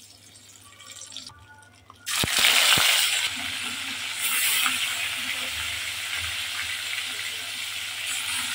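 Pieces of rohu fish going into hot oil in a wok: about two seconds in, a sudden loud sizzle starts with a couple of sharp spits. It then settles into a steady frying sizzle.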